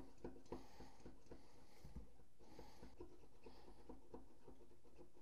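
Kitchen Classics sink-mounted soap dispenser pump pressed again and again, making soft, quick, evenly spaced clicks. The pump is being primed, drawing soap little by little up the extension tube to the check valve.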